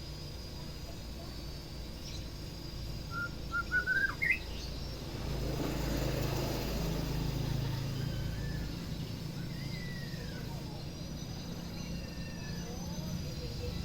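White-rumped shama singing: a quick run of short whistled notes climbing in pitch about three to four seconds in, then fainter scattered whistles later on. A low rumble swells up in the middle and lingers underneath.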